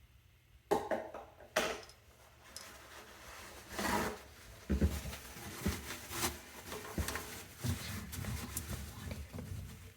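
Sink drain parts being worked loose and pulled out by hand: two sharp knocks about a second in, a scraping rub, then irregular clatter and knocking of the parts.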